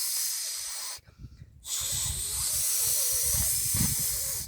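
A person imitating a snake's hiss with the mouth: a long hiss that breaks off about a second in, then after a short pause a second long hiss.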